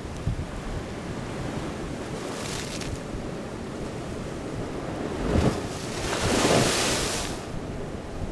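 Sea surf breaking and washing over a rocky shoreline. A wave surges in about five seconds in and is followed by a long hiss of rushing water and spray. Wind buffets the microphone with a low rumble throughout.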